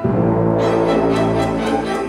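Symphony orchestra, strings and brass together, comes in suddenly and loudly at the start in a rhythmic dance passage, with quick repeated accented strokes over a heavy low end.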